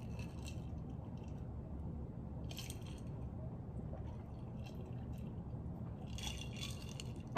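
A person drinking from a glass close to the microphone: three short sips and swallows over a steady low room hum.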